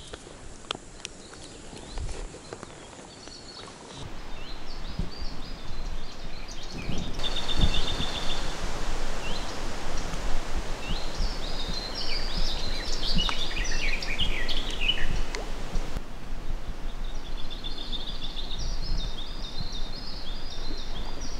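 Small birds singing in quick runs of short chirping notes over a steady outdoor background noise. The first few seconds are quieter, with only a few small clicks.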